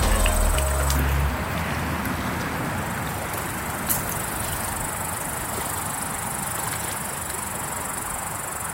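Background music stops abruptly about a second in, leaving the steady rush of a small river's flowing water under a constant high insect whine. A single sharp click comes about four seconds in.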